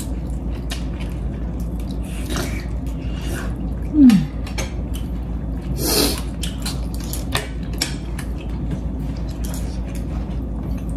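Spoons clinking against ceramic bowls and plates during a meal, in scattered light clicks. There is a brief falling hum from a person about four seconds in and a short louder noise about six seconds in.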